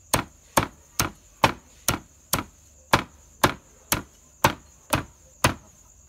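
Cleaver chopping grilled mushrooms on a round wooden chopping board, a steady run of sharp knocks at about two a second.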